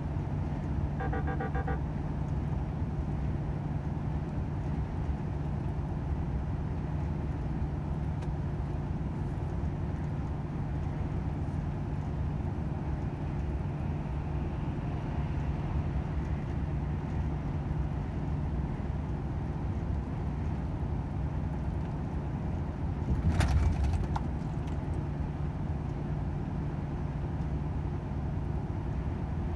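Volvo FH 500 truck's 13-litre inline-six diesel running steadily at motorway speed, with a low engine drone and road noise. A short pulsing beep sounds about a second in, and a brief louder noise comes about three-quarters of the way through.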